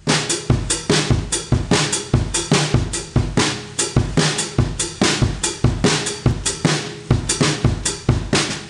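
Drum kit played fast and without a break: several hits a second, mixing deep bass-drum thumps with snare and cymbal strikes.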